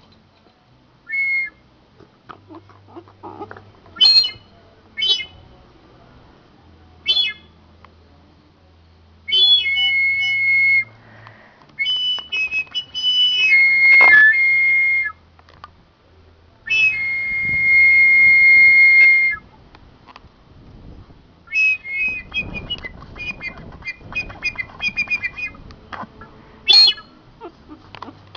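Boxer puppy whining in high, whistle-like squeals, a string of short cries with several drawn out for two or three seconds; a frightened whine.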